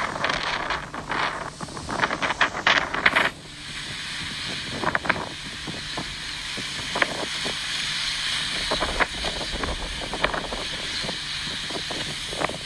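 Hurricane wind gusting through trees: a loud, crackling rustle for the first three seconds, then a steady hiss with scattered ticks.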